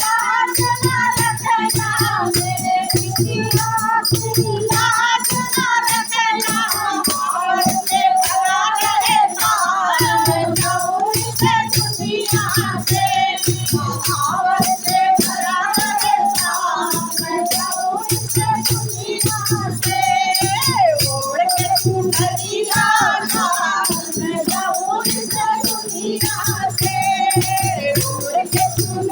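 A Hindu devotional bhajan to the Mother Goddess, sung with a melodic voice line over a steady drum beat and a rattling percussion that keeps time.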